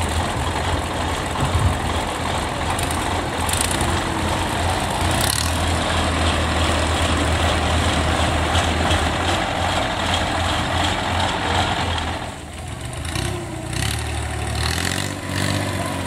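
An engine running steadily, with a brief drop in level about twelve seconds in and a rev near the end.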